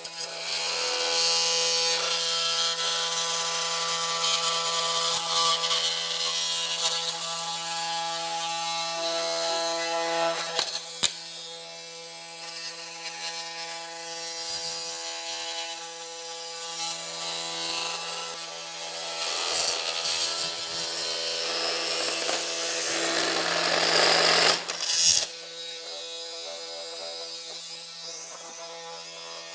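Cordless oscillating multi-tool running steadily with a constant buzzing hum while its blade cuts down PVC pipes. A rasping cutting noise swells and fades as the blade bites, with a sharp click about eleven seconds in and a louder stretch near the end, after which the tool runs more lightly.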